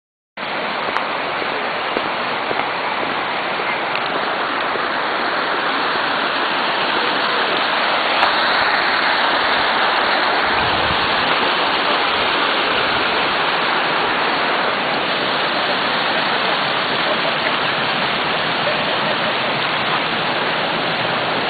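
Water rushing over a low concrete weir and small cascades in a stream: a steady rushing noise that grows a little louder about a third of the way in.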